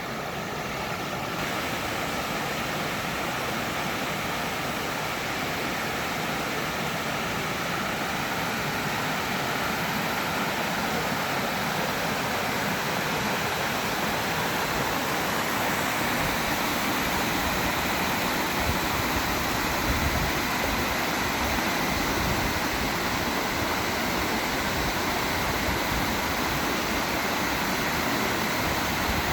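Waterfall pouring over a wide face of travertine ledges, a steady rushing roar of falling water that swells slightly in the first couple of seconds.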